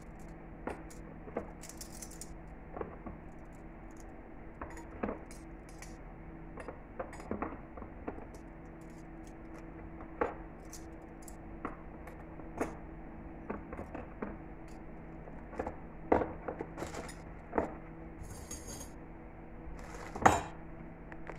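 Stainless steel spoons and forks clinking against one another and against a metal cutlery case as they are handled and put into its slots: scattered separate clinks, the loudest about sixteen seconds in and just before the end. A steady low hum runs underneath.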